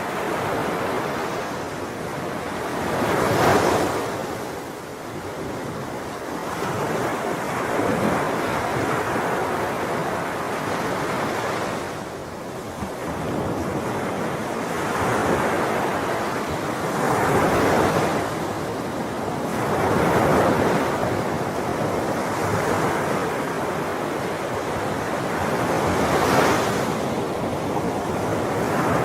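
Sea waves breaking and washing up a shore, a steady rush of surf that swells into a louder break every few seconds.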